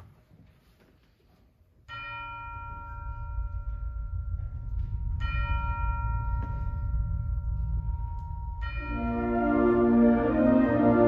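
Concert band chimes (tubular bells) struck twice, about two seconds in and again about three seconds later, each note ringing on over a low rumble that slowly swells. About nine seconds in the winds and brass enter with a sustained chord.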